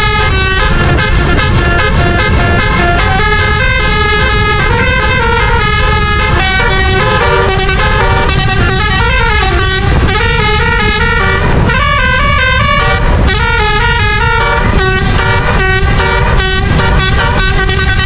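Telolet musical air horns on a QQ Trans coach, a set of twelve roof-mounted horn trumpets, playing a continuous melody of stepping horn notes. A steady low rumble runs underneath.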